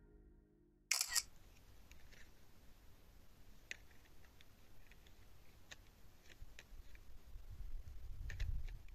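Distant thunder: a low rumble building near the end over a quiet night-time background with a few faint scattered clicks. A sharp crackle comes about a second in, just after background music fades out.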